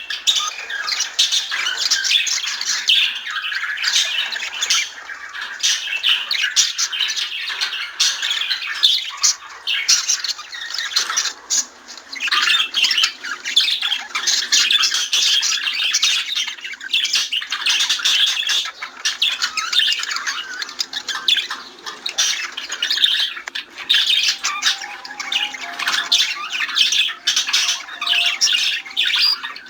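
Budgerigars singing and chattering: a dense, continuous warble of quick chirps and squawks, several birds at once.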